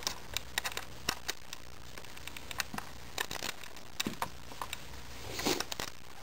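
A screw being unscrewed from a UHC Super 9 airsoft sniper rifle: small irregular clicks and scrapes of the tool and parts, with a soft rustle about five and a half seconds in.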